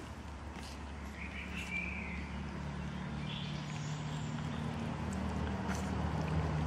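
Street cats chewing and smacking on wet food from a plastic tray, with a few short bird chirps and a low, steady engine rumble that grows slowly louder.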